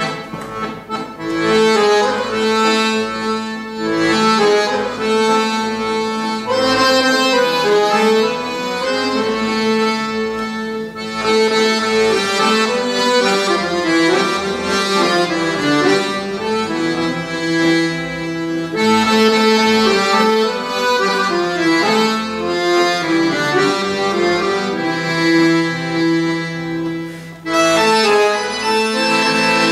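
Piano accordion playing a traditional tune in a church, melody over sustained chords. About two seconds before the end a gaita (bagpipe) comes in with its held drone and chanter.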